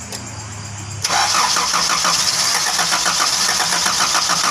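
A Honda Grand Civic's carbureted engine being cranked by its starter for a trial start after its cracked carburetor mounting ear was clamped. The cranking starts suddenly about a second in with a fast, even pulsing, after a low steady hum.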